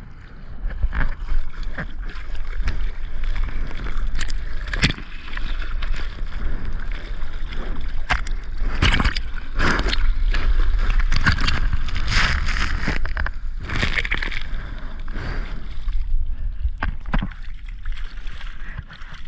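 Ocean water splashing and sloshing around the camera in breaking surf over a steady deep rumble, with many short sharp splashes. The rushing of the water grows louder and fuller in the middle, then eases off.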